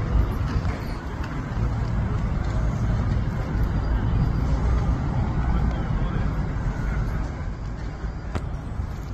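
Steady low engine rumble of a small passenger ferry idling at the dock, with faint voices underneath.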